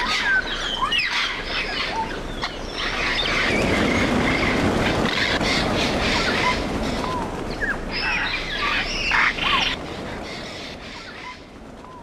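A large flock of African grey parrots calling with many short whistles and squawks. About three seconds in, a dense rushing sound of many wings comes in as the flock takes to the air, and the calls thin out near the end.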